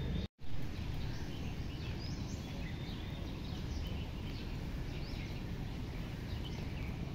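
Outdoor ambient noise with small birds chirping now and then: short, high calls every second or so. The sound drops out for an instant near the start.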